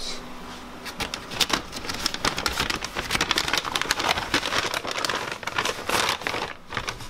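A bag of oats crinkling and rustling while dry rolled oats are poured from it into a plastic measuring cup. It makes a dense, pattering crackle that starts about a second in and fades near the end.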